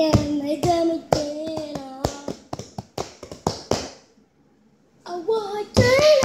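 A young boy singing in a high voice, with held, sliding notes and no clear words, over sharp, irregular hand slaps. Both stop for about a second past the middle, then start again.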